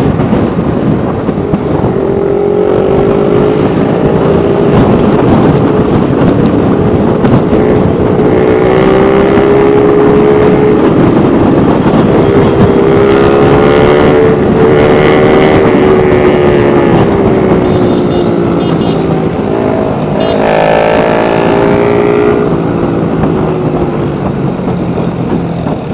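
Motorcycle engine running under way, its note rising and falling with the throttle, with a quick climb in pitch about twenty seconds in, over steady wind and road rush on a helmet-mounted microphone.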